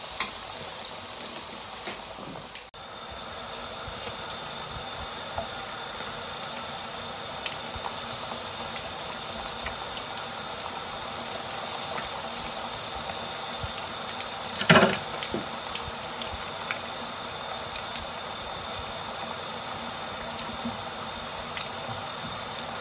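Breadcrumb-coated potato balls deep-frying in hot oil, a steady bubbling sizzle with fine crackles. The sound drops out sharply for a moment about three seconds in, and there is a single loud knock about fifteen seconds in.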